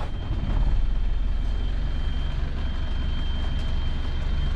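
Steady low rumble of a sailing yacht's engine running under way, with a haze of wind and water noise and a faint steady high whine.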